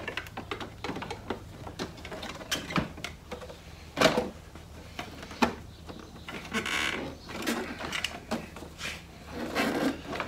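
Hands handling and fitting parts on a motorcycle: scattered clicks, knocks and rustling, with a louder knock about four seconds in.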